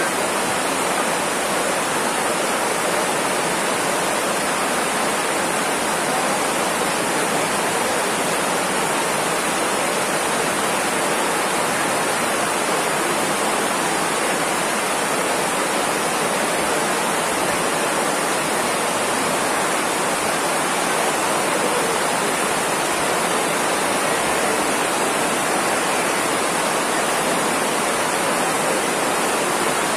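Heavy rain pouring down, a loud, steady, unbroken hiss that does not let up.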